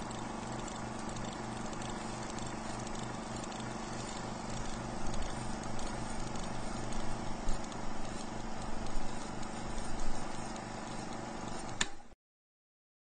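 Sound effect of an old film projector running: a steady hum with light clatter and crackle. It cuts off abruptly with a click about a second before the end.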